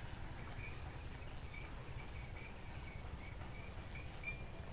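A small creature chirping in a steady run of short, high notes, about three a second, over a faint low rumble.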